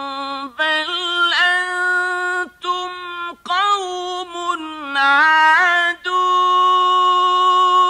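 A male Quran reciter's voice chanting a verse in the slow, melodic mujawwad style, with ornamented melismatic runs broken by short breaths, ending in a long held note on the final word ''adun'.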